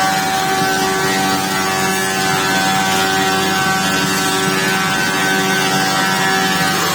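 Weinig Profimat 6 four-sided planer-moulder running steadily with four cutter heads spinning: a loud, even machine whine with a strong high hum.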